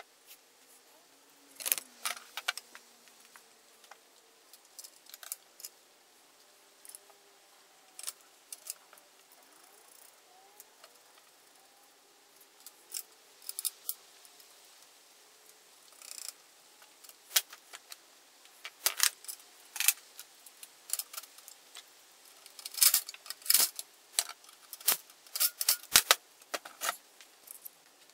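Metal parts clinking and tapping as a painted steel mounting plate and its bolts are handled and fitted against a small Briggs & Stratton engine's block: scattered sharp clinks, coming thicker and louder in the second half.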